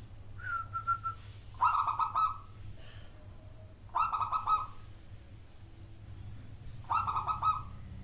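A zebra dove (perkutut) cooing. It gives three short coo phrases, each a quick run of pulsed notes, about two to three seconds apart.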